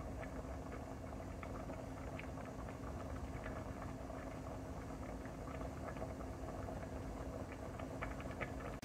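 A pot of brown rice boiling hard in water, with a steady bubbling and many small irregular pops, over a steady low hum.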